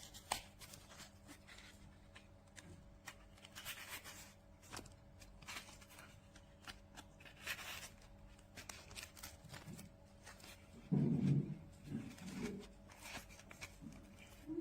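Handling noise: irregular rustling and light clicks, with a louder dull thump about eleven seconds in.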